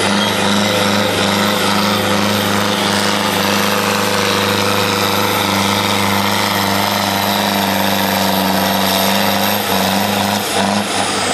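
Farm tractor's diesel engine running flat out under heavy load as it drags a weight-transfer pulling sled, a loud, steady, unwavering note that breaks up slightly near the end.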